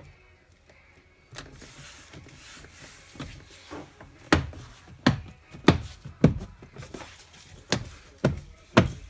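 A car door's door check on a Kia Sorento, knocking sharply about seven times in the second half as the door is worked.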